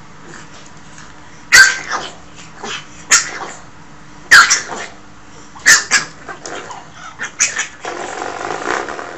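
Pug puppy barking in about five short, sharp yaps a second or so apart, with softer sounds between them.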